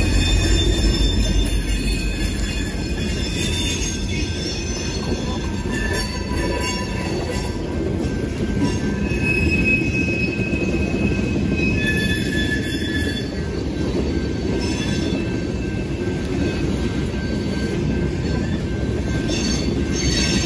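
Freight train rolling through a grade crossing: the EMD GP60 locomotive passes at the start, then covered hopper cars roll by with a steady rumble and wheels squealing now and then. The crossing's bells ring throughout, a mechanical bell on one signal and an electronic bell on the other.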